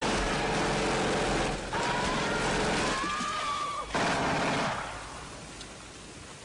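Film sound effects of a mine flooding: a loud rush of water and debris, with a thin wavering high tone in the middle, dropping to a softer steady rush near the end.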